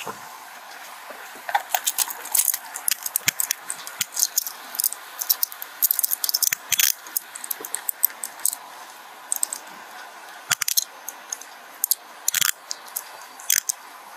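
Metal handcuffs clinking and ratcheting shut around a person's wrists behind her back: an irregular run of sharp metallic clicks and jingles that starts about a second and a half in.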